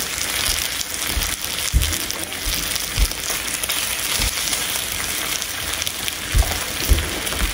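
Thinly sliced beef frying in a hot pan: a steady sizzle and crackle, with a few dull low knocks.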